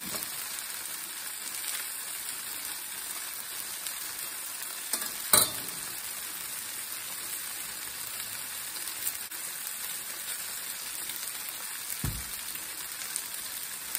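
Vegetable fajitas sizzling steadily in a frying pan, an even hiss, with a sharp click about five seconds in and a dull thump near the end.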